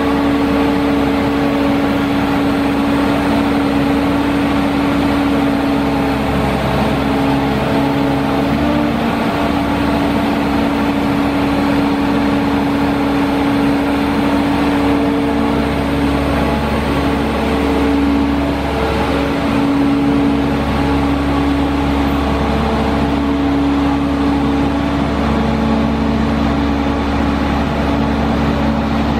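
Sandvik DX680 crawler drill rig's Caterpillar C7 six-cylinder diesel running steadily under hydraulic load as the drill boom is moved. Its hum shifts slightly in pitch a few times as the hydraulics take up work.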